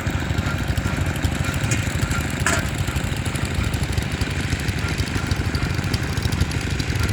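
A small engine running steadily, a continuous low pulsing rumble.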